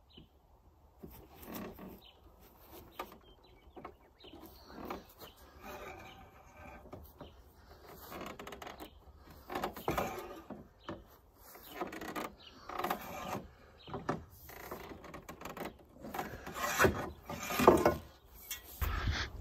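Galvanized steel tube being pulled by hand around a deck-mounted hoop bender to form a greenhouse hoop, with metal-on-metal creaks in irregular bursts, loudest in the second half.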